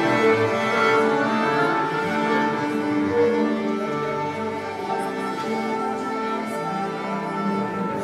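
Orchestral music, bowed strings holding long sustained notes.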